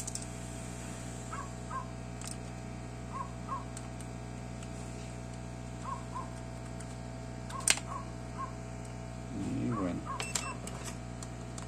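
Short high chirps, often in pairs, repeat every second or two from a bird, over a steady electrical hum. A sharp click about two-thirds of the way through is the power plug going into the laptop's charging jack. Lighter clicks of handling come around it, and a brief low rumble near the end.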